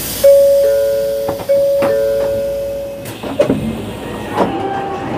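Two-note electronic chime on a Shinkansen bullet train as it arrives at a station. A higher note is followed by a lower one, the pair sounds twice and fades, and a few knocks and clatter follow in the second half.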